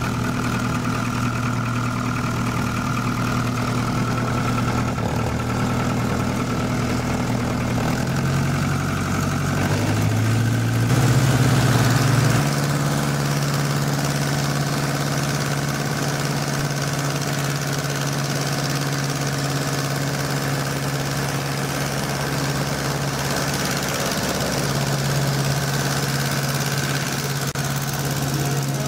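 Jodel D112 light aircraft's piston engine and propeller running at idle shortly after start, then opened up about ten seconds in and held at a slightly higher, steady speed while taxiing over grass.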